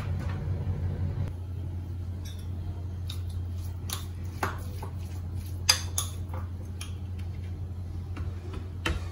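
A spoon clinking and scraping against a bowl and a plate in scattered sharp taps, the loudest about halfway through, over a steady low hum.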